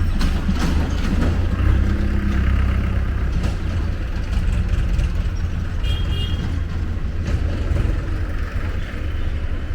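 Heavy vehicle rumbling steadily at a railway level crossing, with scattered sharp knocks and a brief high beep about six seconds in.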